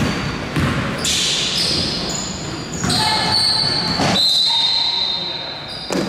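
A basketball bouncing on a gym floor, about half a dozen knocks, with high shoe squeaks over it and voices echoing in the hall.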